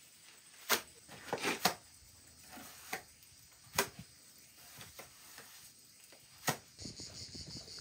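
Trowel throwing wet cement onto a mesh-reinforced wall and scraping the hand board: several sharp wet slaps and scrapes at irregular intervals. Near the end a fast, high-pitched rhythmic chirring begins.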